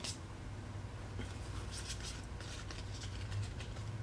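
Pokémon trading cards being handled: a quick flick of a card at the start, then a few faint scratchy slides and rustles of card stock, over a steady low hum.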